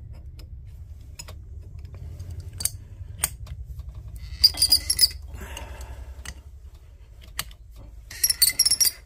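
Steel wrenches clinking and rattling against a brass air-line splice fitting and each other as they are repositioned and tightened: a few single clicks, then two quick bursts of bright metallic clinks, about halfway and near the end. A steady low hum runs underneath.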